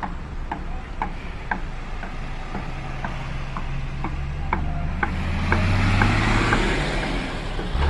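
Road vehicles driving slowly past with their engines running, the engine and tyre noise swelling about five seconds in as they pull by. A light ticking repeats about twice a second throughout.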